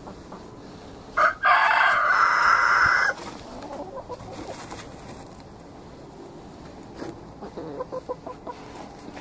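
A rooster crows once, loud, starting about a second in and lasting about two seconds. Soft clucking from the chickens follows near the end.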